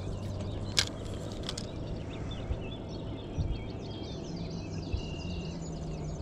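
Small birds chirping and twittering over a steady low hum, with two sharp clicks about a second in.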